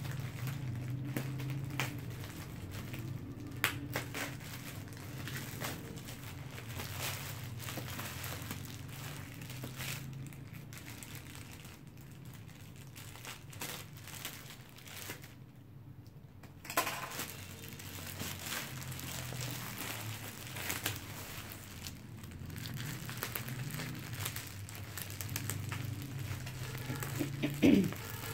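Clear plastic wrap on a cardboard parcel crinkling and rustling as it is cut with scissors and pulled back by hand, in irregular crackles. The loudest crackle comes near the end, as the plastic is pulled off.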